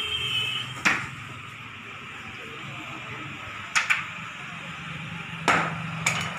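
Sharp knocks on the frame of a box-type cot being fitted together, like hammer or mallet blows. There is a single knock about a second in, a quick pair a little past the middle, another single knock, and a second quick pair near the end.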